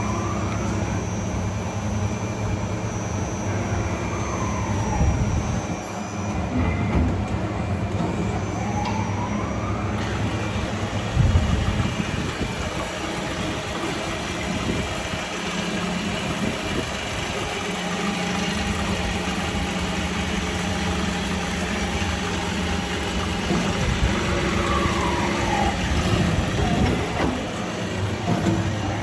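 Doosan Puma TT1500SY twin-spindle CNC turning center running under power: a steady motor hum, with whines that rise and fall a few times as the spindles speed up and slow down. A single knock about eleven seconds in.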